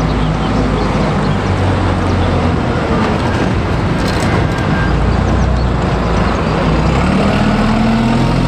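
Single-deck diesel city bus running and pulling away, its engine note rising near the end as it accelerates, with road traffic around it.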